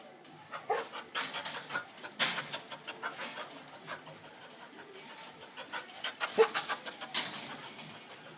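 Border collie panting in short, irregular breaths.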